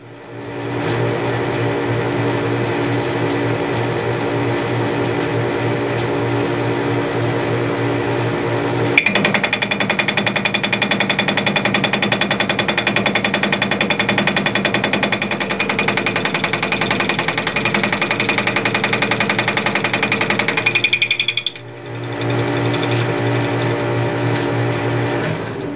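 South Bend 10K lathe running with a fly cutter spinning in the chuck. About nine seconds in, the fly cutter starts an interrupted cut across an aluminum bar, about an eighth of an inch deep, with a rapid, steady chattering rattle. The cut ends at about twenty-one seconds, and the lathe runs on without cutting before it fades near the end.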